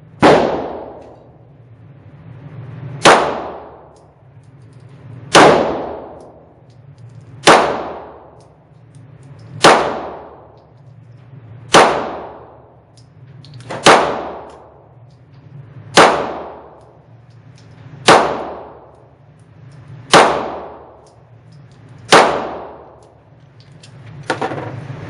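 Smith & Wesson M&P9 9mm pistol firing slow aimed single shots, eleven of them about two seconds apart, each ringing out with reverberation over a steady low hum.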